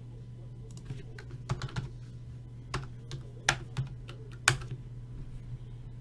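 Typing on a computer keyboard: about a dozen irregular keystrokes and clicks, a few of them louder, over a steady low hum.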